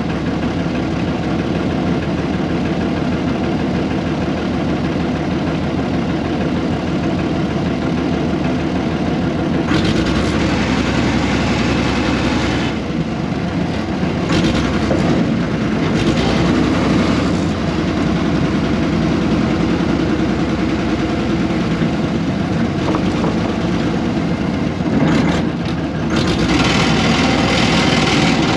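Air-cooled Deutz diesel engine of a 1970s RM.80 excavator running continuously, its sound swelling and brightening several times before settling back.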